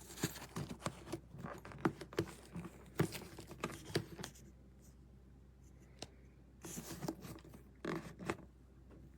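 Scattered clicks, scrapes and rustles of objects being handled close up, with a quieter stretch in the middle and more scraping near the end.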